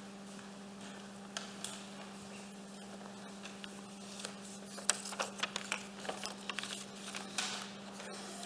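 Faint footsteps, shuffles and small knocks of people moving about near the lectern, over a steady low hum. The knocks grow more frequent after about five seconds.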